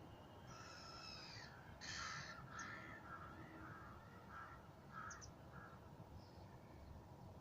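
Faint bird calls: a longer call, then a louder harsh note followed by a string of short repeated notes.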